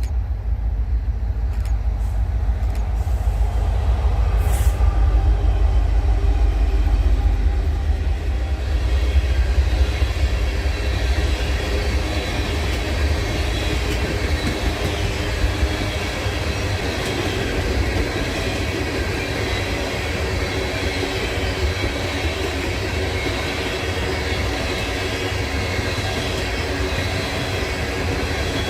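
Freight train passing: the diesel locomotives' deep rumble for the first ten seconds or so, then the steady rolling and rattle of the freight cars' wheels on the rails.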